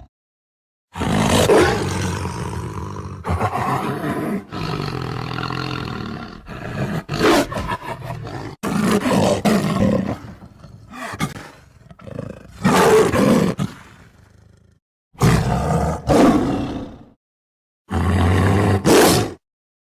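Tiger roars and growls, a string of separate loud calls edited together, with abrupt cuts to silence between some of them.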